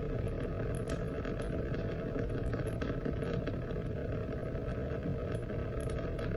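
Steady rain: a dense, low rushing noise with scattered sharp drop ticks, several a second, over it.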